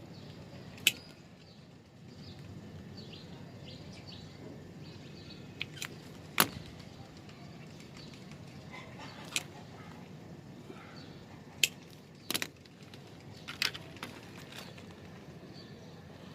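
Sharp clicks and taps, about ten, spread irregularly, from hands working MC4 solar cable connector parts and tools, over a steady low background noise.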